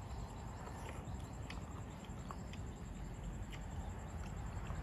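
Faint chewing of a mouthful of grilled pork, heard as scattered soft clicks over a steady low background noise.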